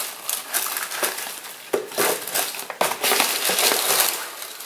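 Packaging rustling and crinkling as it is handled, in a run of irregular crinkles of different loudness.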